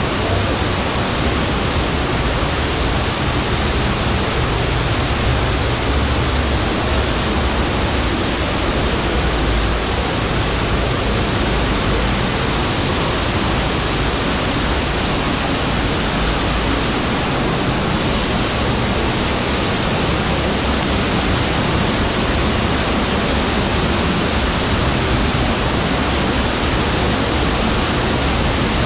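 Underground cave stream rushing and splashing over rocks as a small waterfall, a loud, steady rush of water that holds level throughout.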